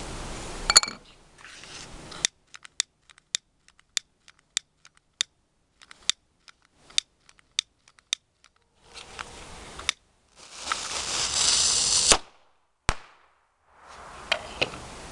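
Firecracker cannon firing: one sharp, loud bang about a second in, followed by a scatter of small clicks and ticks. Later a loud hiss that stops abruptly, and one more sharp click just after it.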